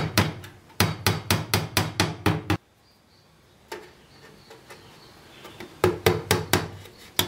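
Hammer tapping in quick light blows, about five a second, fastening a wire mesh cover onto a wooden box. The tapping stops for about three seconds partway through and starts again near the end.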